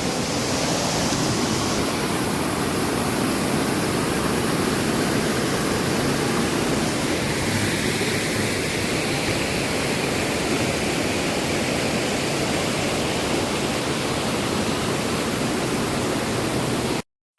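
Steady, loud rushing of a waterfall, an even wash of noise with no distinct events; it cuts out abruptly for a moment at the very end.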